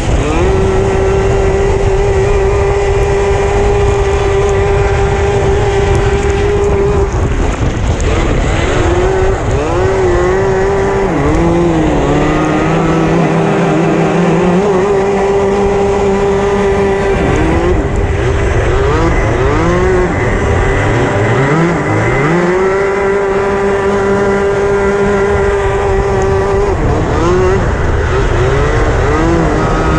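Racing kart engine heard onboard at full race pace, holding a steady high pitch along the straights and dropping and climbing back several times through the corners. The engines of other karts running close by rise and fall underneath it.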